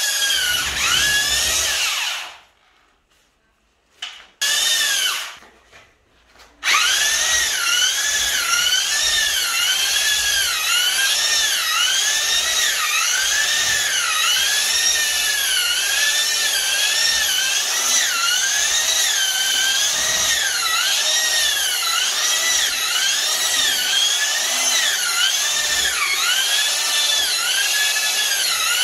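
Corded drill with a paddle mixer churning tile thinset mortar in a plastic bucket. It runs for about two seconds, stops, gives a short burst, then runs steadily from about six seconds in, its whine wavering up and down about once a second.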